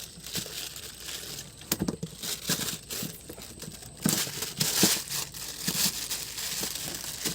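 Irregular rustling and crinkling noise with scattered clicks, and a louder rushing stretch about four to five seconds in.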